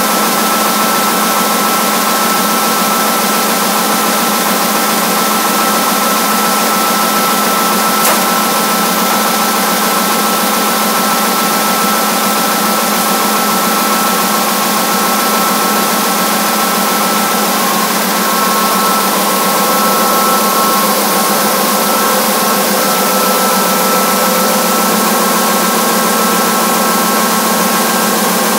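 KBA Comet web offset printing press running at speed: a loud, steady mechanical drone with several steady whining tones, and a single sharp click about eight seconds in.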